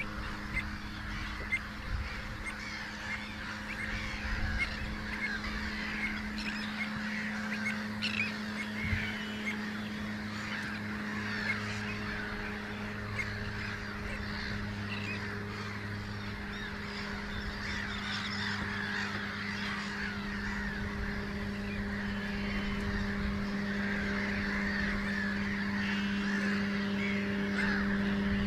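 A large roosting flock of red knots calling continuously, many short overlapping calls merging into a chatter, with a steady low hum underneath.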